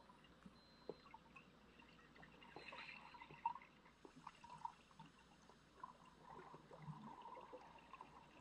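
Near silence: faint underwater ambience, with scattered small clicks and ticks.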